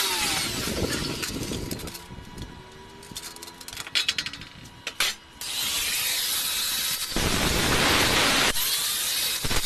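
Angle grinder running against steel, dying away about two seconds in. A few sharp clicks and knocks follow, then the grinder starts again and grinds steadily through the second half, loudest near the end.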